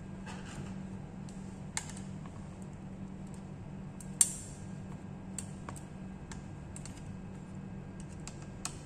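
Scattered small clicks and taps from a laptop being taken apart by hand, with one sharper click about four seconds in, over a steady low hum.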